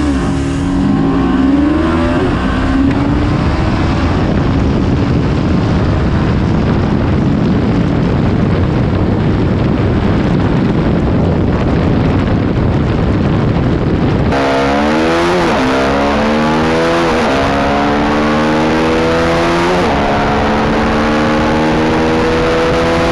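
TVS Apache RR 310 single-cylinder engine accelerating hard at full throttle. For most of the first half it is buried under a loud rush of wind on the microphone at speed. From a little past the middle the engine rises in pitch through several upshifts, dropping back at each shift, then holds high near the top of the gear.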